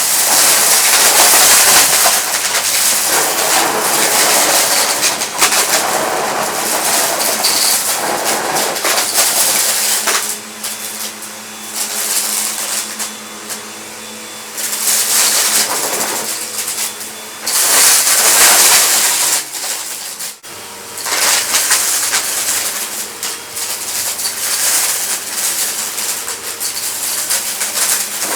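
Vacuum cleaner running with a steady motor hum. Its hiss swells loudly in stretches as debris is sucked up and rattles through, with a brief dropout about twenty seconds in.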